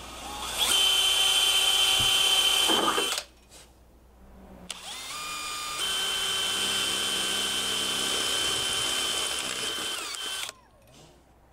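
Cordless drill running against the bus's metal body in two runs: a short one of about two and a half seconds, then a longer one of about six seconds that rises in pitch as it spins up and then holds a steady whine.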